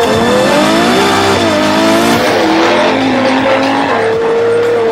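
Ferrari 812 GTS's 6.5-litre V12 exhaust, loud, with the engine note rising and falling as the revs climb and drop through gear changes, then holding steady near the end.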